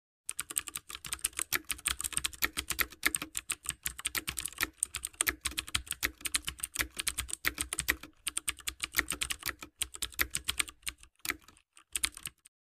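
A rapid run of light clicks, several a second, that thins out and stops shortly before the end.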